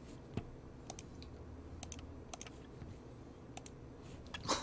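Scattered sharp clicks of someone working a computer's keys and mouse, some in quick pairs, with a louder cluster near the end.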